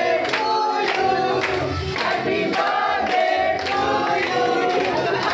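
A crowd of people singing together, with hand claps about twice a second.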